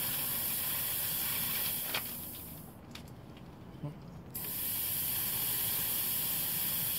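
Compressed air hissing steadily as it is fed under pressure into an oil-filled cylinder; the hiss fades out about two seconds in and cuts back in suddenly about four and a half seconds in, with a faint click or two.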